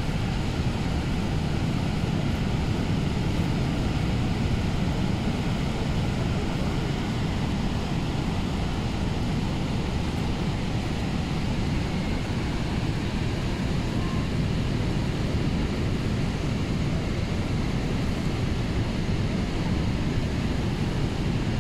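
Steady rush of water from the Horseshoe Falls at Niagara and the rapids pouring over its brink: a deep, constant noise with no breaks.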